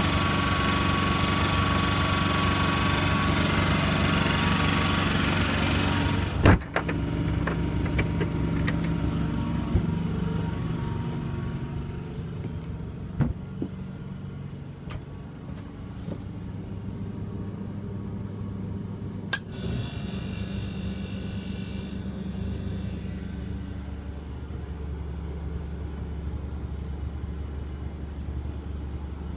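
Portable inverter generator engine running steadily, loaded by a boat's air conditioner. A sharp knock about six seconds in is followed by a drop in the high hiss while the engine keeps running, and a few more clicks come later.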